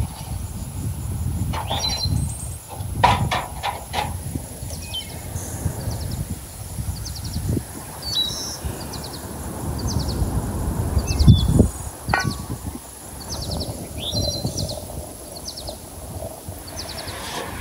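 Outdoor ambience of small birds chirping in repeated short phrases over a low rumbling background, broken by a few sharp knocks and clatters and one dull thump about eleven seconds in.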